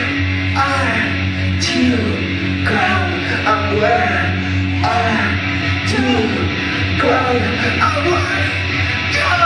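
Live band playing loud amplified rock music, a singer's voice over guitar and a steady low bass.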